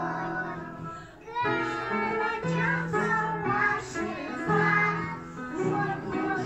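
Young children singing a song together with guitar accompaniment, held notes sung in phrases, with a short break between lines about a second in.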